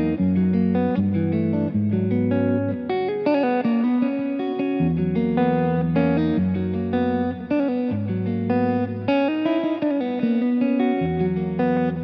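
Vola OZ RV TNC electric guitar played through effects, with melodic lines and chords over a low bass line of held notes that changes about once a second.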